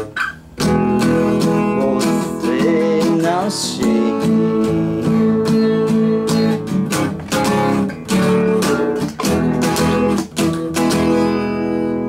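Acoustic guitar strummed in repeated chords, closing the song, with the last chord ringing out near the end.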